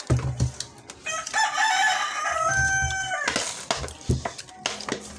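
A rooster crows once, a single stepped call of about two seconds starting about a second in. Low thumps from handling close to the microphone are heard at the start and again a few times through.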